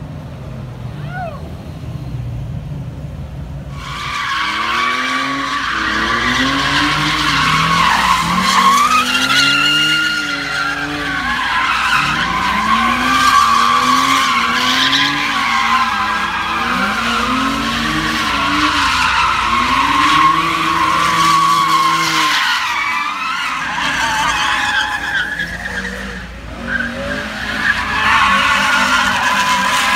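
Pickup truck doing burnouts and donuts: tyres screeching steadily while the engine revs up and down about every second and a half. The screech starts about four seconds in, over the engine running, and eases briefly near the end before picking up again.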